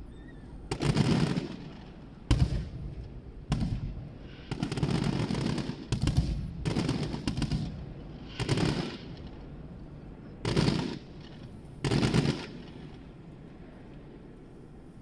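Aerial fireworks shells exploding in a quick series of about nine loud booms over roughly twelve seconds, several drawn out into longer crackling stretches, then a lull near the end.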